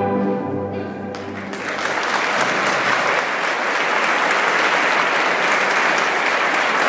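A string ensemble's final chord rings and stops about a second in, then the audience applauds steadily.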